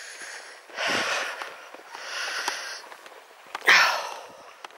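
A tired person's heavy breathing while walking: three or four hissy breaths about a second apart, the loudest a voiced, sighing exhale near the end.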